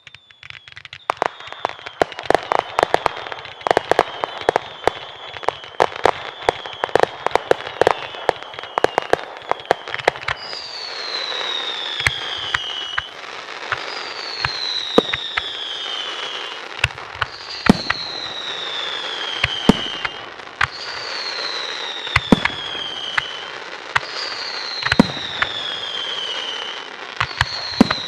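Fireworks display: for about ten seconds a dense run of rapid crackling pops and bangs, then a series of falling whistles, one every two to three seconds, with sharp bangs between them.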